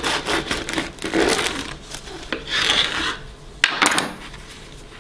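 Serrated bread knife sawing through the crisp crust of a freshly baked ciabatta on a wooden cutting board, a quick run of rasping strokes for about the first two seconds. A couple of sharp knocks follow later, as the knife is put down.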